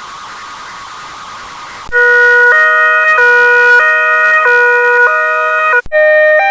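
Electronically modified two-tone ambulance siren, stepping back and forth between a high and a low tone about every 0.6 seconds. It begins about two seconds in, after a soft hiss, and near the end it cuts out briefly before a different siren variation starts.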